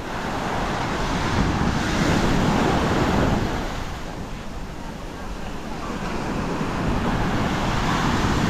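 Ocean surf breaking on a steep beach, swelling to a peak a couple of seconds in, easing off, then building again, with wind on the microphone.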